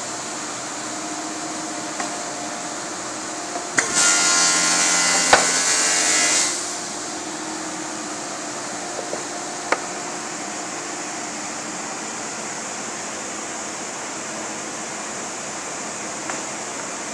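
Sliding table saw blade cutting through a piece of wood held in a jig: a loud whining cut starting about four seconds in and lasting about two and a half seconds, with a sharp knock midway. A steady workshop hum runs underneath, and a single sharp click comes near ten seconds as the wood is handled.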